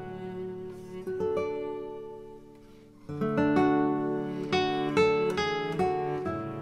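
Background music of slow plucked-string notes, each ringing and dying away, fading almost out about halfway through before a new phrase begins.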